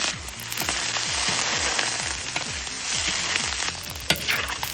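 Cubes of blanched pork belly sizzling as they fry in hot oil in a pan, a dense steady hiss, with a few sharp clicks near the end.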